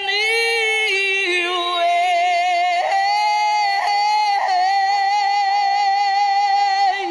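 A woman singing unaccompanied, holding one long high note on the word "weight" with strong vibrato, breaking off just before the end.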